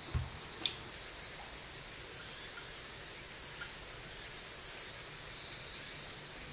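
Seafood and sweetfish grilling on a wire mesh over a charcoal fire: a steady sizzle, with a soft thump and then a sharp crackle in the first second, and a few faint pops later.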